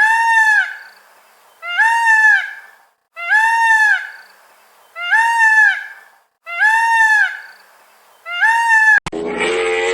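A bird giving six loud honking calls about a second and a half apart, each call rising then falling in pitch. Just before the end the sound cuts to a different, harsher sound.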